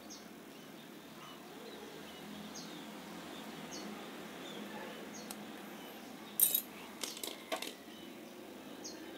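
Small metal parts of a spinning reel clicking and clinking as the reel is dismantled by hand. There is one sharp clink a little past halfway, the loudest sound, then a quick cluster of lighter clicks about a second later.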